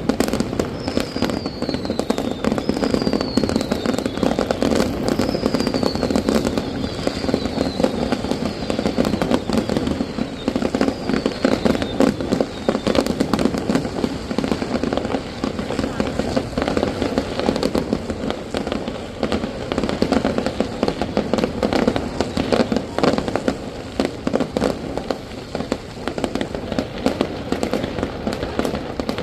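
Aerial fireworks going off without a break: dense bangs and crackling, with a run of short falling whistles about a second apart in the first half, over the low chatter of a crowd.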